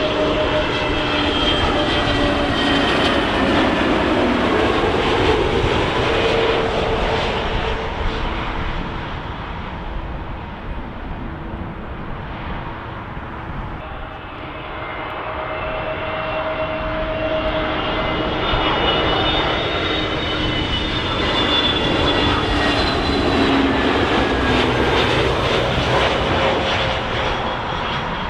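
Airbus A320neo jet airliners passing low on final approach: a steady jet whoosh with whining engine tones that shift in pitch as each aircraft goes by. There are two passes. The first fades away about a third of the way in, and the second builds up from about halfway and peaks near the end.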